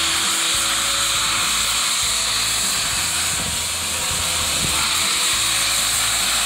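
Steam hissing from the cylinder cocks of Milwaukee Road 261, a 4-8-4 Northern steam locomotive, as it rolls slowly past at close range. The hiss is steady and high, with music underneath.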